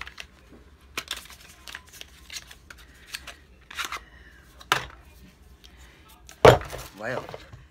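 Paper carton and skincare bottle being handled and unpacked: a scatter of sharp clicks and rustles. A little over six seconds in, something is dropped with a loud thud, followed by a brief exclamation.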